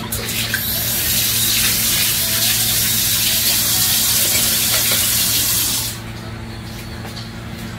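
Water running hard from a kitchen tap for about six seconds, then shut off abruptly, over a steady low hum.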